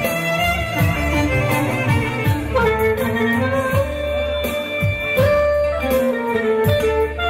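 Music led by a violin melody, with guitar and a steady beat underneath.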